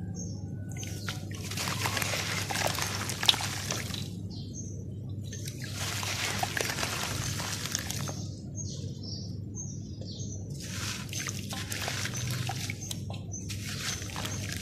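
Handfuls of dry red dirt crumbled by hand into a basin of water, heard as three stretches of fizzing, splashing hiss with pauses between them. A single sharp click about three seconds in.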